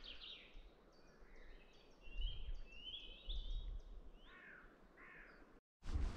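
Wild birds singing and calling in woodland: a mix of short chirps, trills and whistled notes. Near the end, after a brief break, a louder rustle of footsteps takes over.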